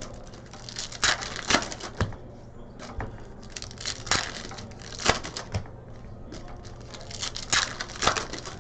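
Trading card packs being torn open by hand, their foil wrappers crinkling, with irregular short rips and rustles.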